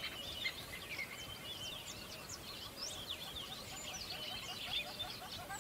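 Many small birds chirping and twittering together, quick short calls overlapping one another, with lower repeated calls underneath.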